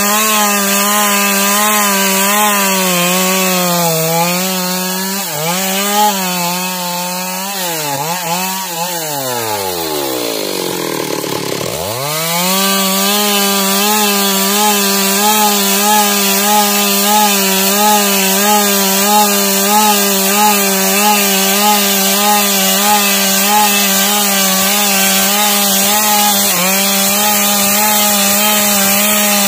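Stihl two-stroke chainsaw running at high revs while rip-cutting lengthwise along a log, its pitch wavering slightly under load. About eight seconds in, the engine speed falls away almost to idle, then climbs quickly back to full speed about four seconds later and holds steady.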